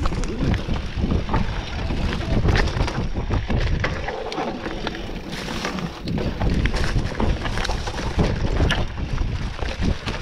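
Mountain bike riding fast down a dirt trail: tyres rumbling over the ground, the chain and frame clattering with frequent clicks and knocks over bumps, and wind buffeting the microphone.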